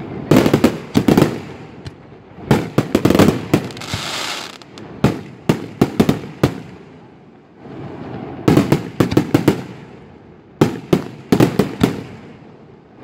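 Fireworks display: aerial shells bursting in rapid volleys of sharp bangs, coming in about six clusters with short lulls between, and a spell of hissing about four seconds in.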